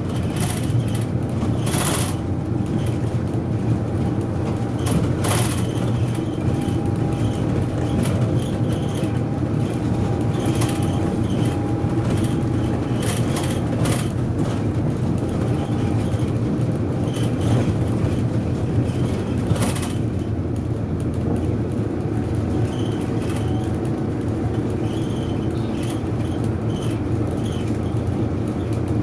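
A city bus running along the road, heard inside the passenger cabin: steady engine and road rumble, with occasional sharp knocks and rattles from the bodywork over the first two-thirds.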